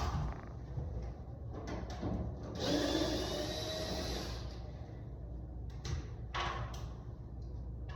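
A power drill runs for about two seconds, a motor whine that rises slightly in pitch, driving out a Phillips screw from the wall unit's cover. A few short knocks and clicks of handling come before and after it.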